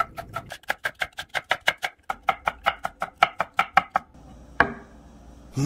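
Chef's knife chopping vegetables on a wooden cutting board in fast, even strokes, about five a second, with a brief break partway through. The chopping stops about four seconds in, and a single knock follows near the end.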